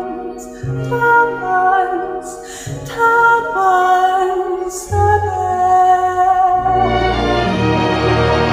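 Slow song: a woman singing long held notes with vibrato over soft low accompaniment, with short breaths between phrases. About seven seconds in, the accompaniment swells fuller.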